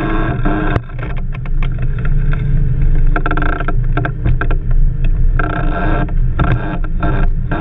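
Blokart ride on a pole-mounted GoPro: a constant heavy low rumble of wind and rolling on the sand, with a steady fixed-pitch hum that keeps cutting in and out.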